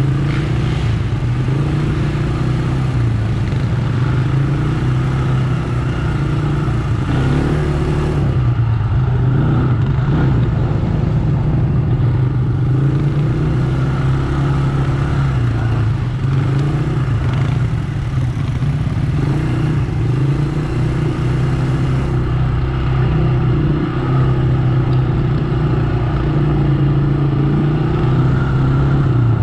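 ATV engine running while riding, its pitch rising and falling continually as the throttle opens and eases.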